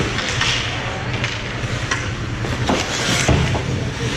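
Ice hockey game sound in a rink: skates scraping on the ice and a few sharp knocks of sticks and puck, the loudest about three seconds in, over a steady low hum.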